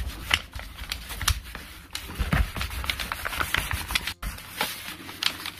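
A cloth rubbing over the plastic housing of a cordless drill, with irregular soft clicks and taps as the drill is turned and handled.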